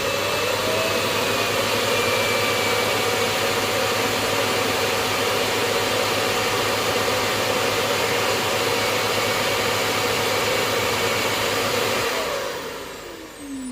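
Robot vacuum's self-emptying dock running its suction motor to empty the robot's dustbin: a loud steady rushing whir that comes up to speed at the start, then winds down with a falling whine about twelve seconds in.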